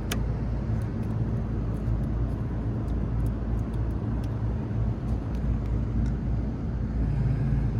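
Steady low machinery hum with a faint background rush and a few light ticks.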